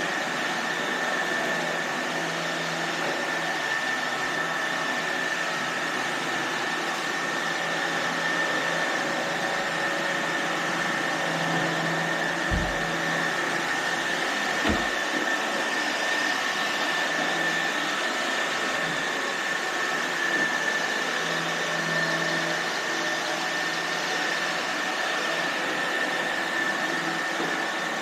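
iRobot Roomba robot vacuums running: a steady whirring hiss with a constant high whine, and two brief low thumps about halfway through.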